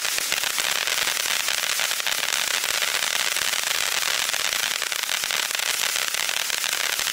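A 200 g ground fountain firework burning: a steady rushing hiss from its spark jet, packed with fast crackles and pops.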